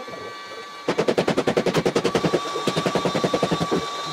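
A loud, rapid mechanical rattle of even knocks, about ten a second, in two spells of a second or so each with a short break between, over the steady whine and hiss of a running cordless heat gun.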